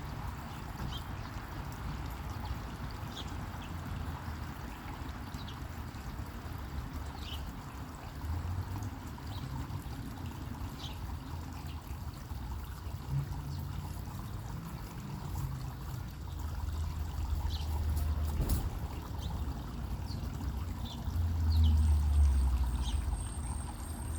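Water trickling and splashing in a fountain, with scattered short chirps of sparrows. A low rumble swells twice in the second half, and there is one sharp click about two-thirds of the way through.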